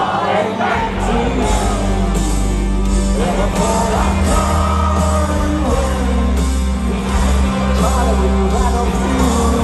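Rock band playing live: a sung vocal over a sustained bass line and a steady drum beat.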